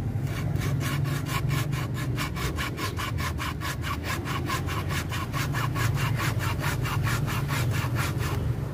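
Small hand pruning saw cutting into a woody bougainvillea branch, quick even back-and-forth strokes at about four or five a second, pausing briefly near the end.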